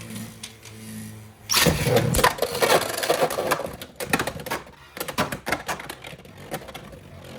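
Beyblade X spinning tops launched into a plastic stadium, striking about a second and a half in with a loud clash. Rapid clicking and clacking follows as they collide and grind around the stadium. A steady hum comes before the launch.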